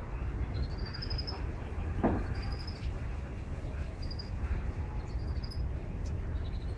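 Short high chirps in quick, slightly rising trills, repeating every second or so over a steady low rumble, with one sharp knock about two seconds in.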